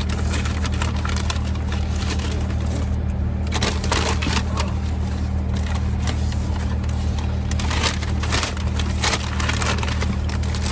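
Close-mic eating noises: irregular crackly crunching and crinkling of chewed food and paper wrappers, over a steady low hum.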